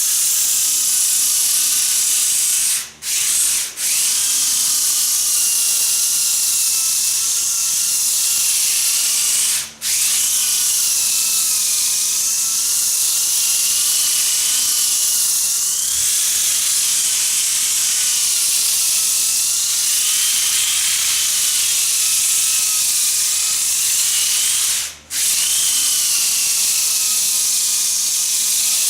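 Electric sander running against a warped hardwood floor, its motor whine wavering up and down under load. It cuts out briefly four times, twice in quick succession a few seconds in, once about ten seconds in and once near the end, and spins straight back up each time, because its plug is working loose at the end of the cord.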